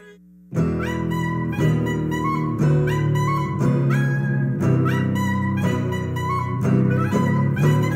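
Instrumental musical-theatre dance music starts about half a second in: an upbeat show-tune intro with a phrase that repeats about once a second.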